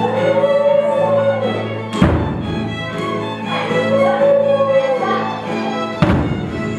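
A small ensemble of violins, electronic keyboards and hand drums plays a lively tune. A swooping melody phrase recurs over held keyboard chords and a low bass, with a heavy beat about two seconds in and another near the end.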